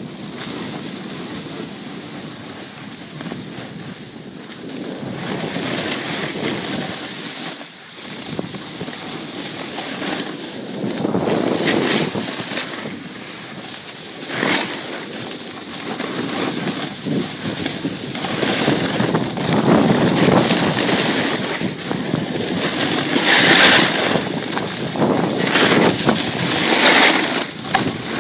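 Wind rushing over the microphone together with the hiss and scrape of skis on packed snow during a downhill run, swelling and fading in surges with the turns.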